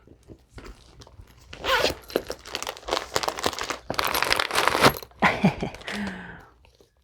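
Packing material crinkling and rustling in dense, irregular handling noise as a small bag is opened and its contents are pulled out.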